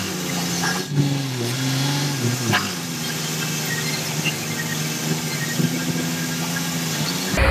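Truck engine idling, a low steady hum that wavers up and down in pitch for the first couple of seconds and then settles, with a few light clicks. The sound cuts off abruptly just before the end.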